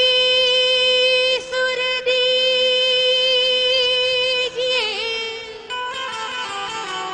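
Bhajan singing: a voice holds one long high note for about four and a half seconds, then wavers and steps down through a falling melodic phrase. A faint steady low drone runs beneath it.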